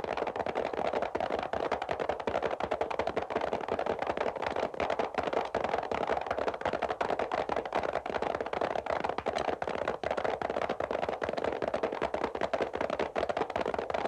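Hoofbeats of several horses, a dense, rapid, steady clatter.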